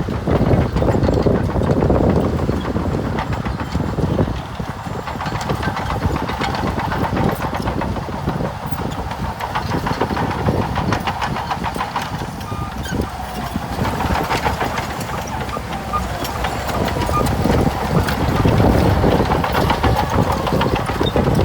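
Heavy earthmoving machine's diesel engine running steadily, with irregular clanks and knocks over it throughout.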